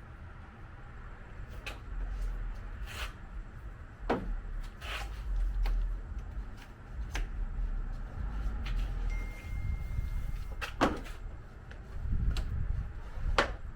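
Handling noise from masking work on a car: about a dozen irregular sharp clicks and knocks over a low rumble, the loudest near the end.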